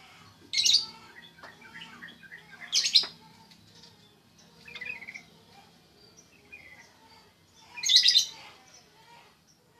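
Yellow-vented bulbul (trucukan) calling: three loud, short bubbly phrases, the last after a pause of several seconds, with softer chirps between.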